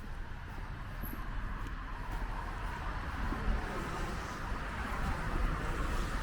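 A car passing along a city street, its tyre and engine noise swelling over the last few seconds above a steady low rumble.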